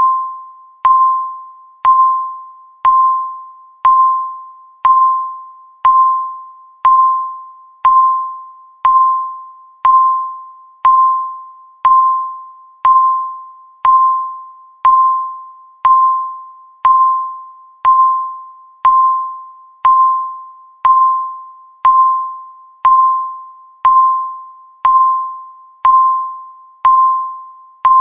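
Countdown timer beeping once a second: a single high electronic beep, sharp at the start and fading away, each one marking one second left on the timer.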